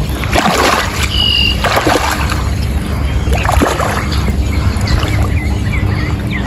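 Water splashing and sloshing as a hooked largemouth bass is played in the pond, over a steady low rumble. A short whistle about a second in and a few quick chirps near the end.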